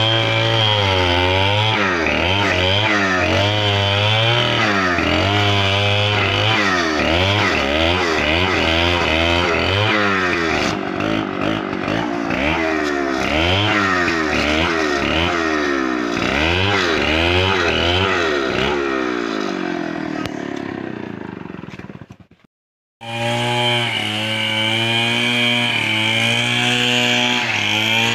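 Chainsaw cutting into a felled palm trunk, its engine pitch rising and dipping over and over as the chain bites and frees. About twenty seconds in it winds down to a brief silence, then an engine comes back running at a steady pitch.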